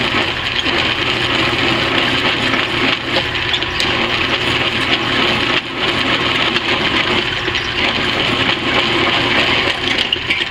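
A 3/4-inch twist drill in a drill press boring steadily through steel plate, the cutting noise running over a steady motor hum, with a brief dip a little past halfway.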